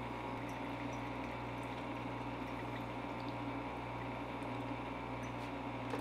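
Steady low hum and liquid hiss from a running electric pot still, with faint ticks like drips.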